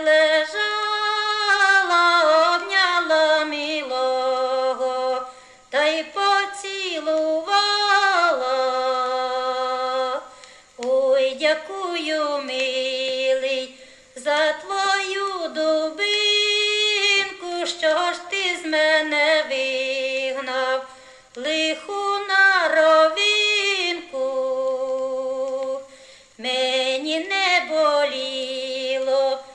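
A woman's voice singing a Ukrainian folk song, played back from a vinyl LP on a turntable. She sings in long phrases with short pauses between them, and no instruments are heard.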